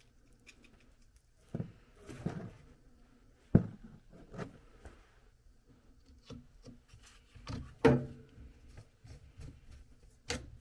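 Hand work with screws and parts on a washing machine's pump fitting: scattered knocks, clicks and rubbing, with sharper knocks about three and a half and eight seconds in and again near the end. No power tool is running.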